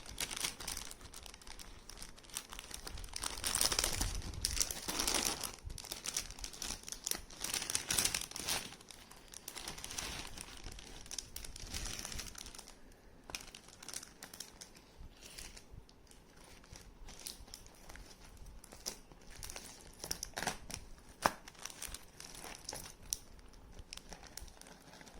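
Parcel packaging being crinkled and torn open by hand, in irregular rustling bursts that are loudest in the first half, with a few sharp clicks later on.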